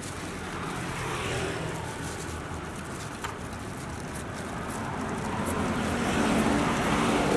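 Street traffic: vehicles passing close by over a steady traffic rumble, one swelling about a second in and a louder one with a low engine hum near the end. A single faint click about three seconds in.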